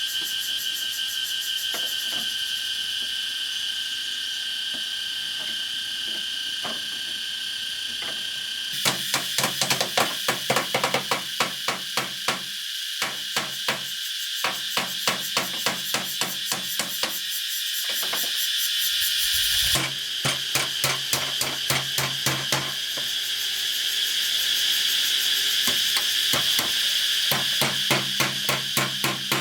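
Rapid, evenly spaced hammer blows on bamboo, about three a second, starting about a third of the way in, breaking off briefly and then resuming. Insects chirp steadily throughout.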